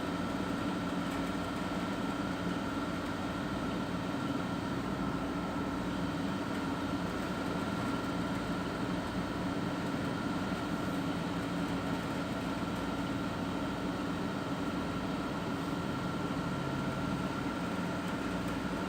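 Steady mechanical hum with a few held tones over a soft noise, unchanging throughout.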